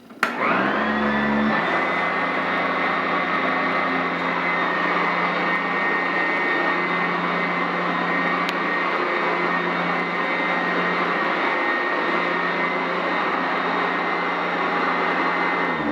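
Sanitaire SC899F commercial upright vacuum switched on: its motor whines up to speed within the first second, then runs steadily with a high whine over its brush roll on carpet. It is set one height notch above a setting where it was bogging down, and the low hum shifts about a second and a half in.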